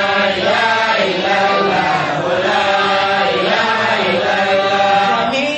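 Men's voices chanting Islamic dhikr into microphones, in long held notes that waver and bend slowly in pitch.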